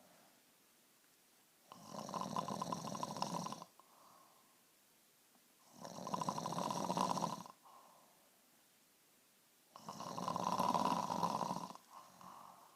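A woman snoring heavily in her sleep: three loud, rasping snores about four seconds apart, each about two seconds long and followed by a short, softer breath. Her doctor put her on an oxygen machine at night because of snoring like this.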